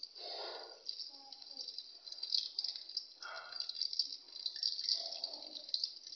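Kachoris deep-frying in hot oil: a steady sizzle full of small crackles and pops, with a few brief, lower swishes.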